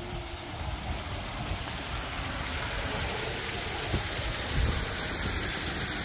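Steady rushing noise with a heavy low rumble, growing slightly louder as it goes.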